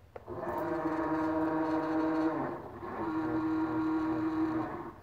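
Stepper motors of a Sherline CNC chucker lathe whining steadily as the machine makes axis moves after cycle start, in two stretches with a short break about two and a half seconds in.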